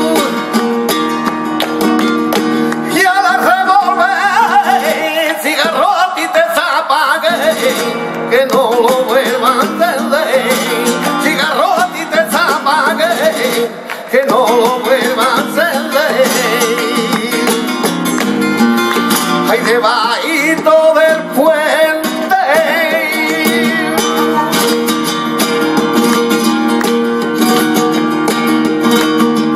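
Flamenco tangos: a male cantaor singing over a flamenco guitar, with palmas (handclaps) keeping the rhythm. The voice comes in about three seconds in and drops out after about twenty seconds, leaving the guitar and claps.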